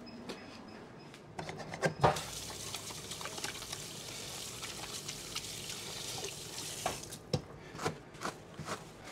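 A heavy leg of lamb knocks onto the barbecue grate as it is turned, then a steady crackling sizzle of oil and fat dripping onto the hot hardwood charcoal, which smokes rather than flares. The sizzle fades about seven seconds in, followed by a few light clicks of metal tools.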